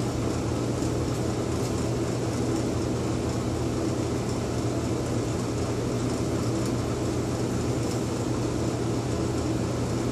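A steady mechanical hum with an even hiss that does not change, like a running fan or air-handling motor.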